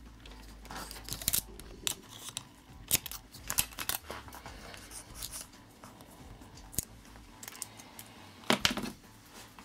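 Heat-resistant tape being pulled off its roll and pressed down onto a LiPo battery pouch: irregular crackles and clicks, loudest in a short burst near the end.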